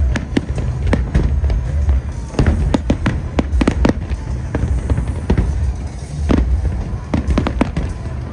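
Aerial fireworks shells bursting: many sharp bangs and crackles in quick succession, coming in clusters with the thickest runs about half a second in, from about two and a half to four seconds, and again around six to eight seconds.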